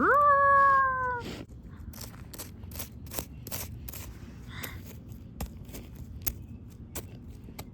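One drawn-out animal call, about a second long, that shoots up in pitch and then slides slowly down, followed by scattered faint clicks and taps.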